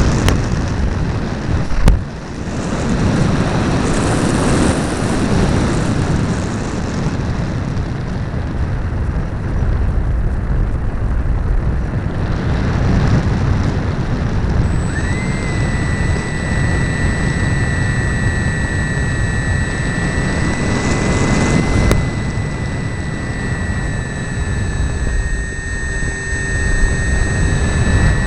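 RC model airplane in flight heard from onboard: a steady rush of wind noise, joined about halfway through by a steady high-pitched whine from the motor and propeller. Two sharp clicks stand out, one early and one near the end.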